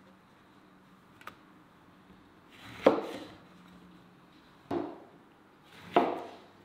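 Kitchen knife cutting whole oranges in half on a plastic cutting board: three cuts, each a short rising rasp as the blade goes through the fruit, ending in a sharp knock of the blade on the board. A faint click comes about a second in.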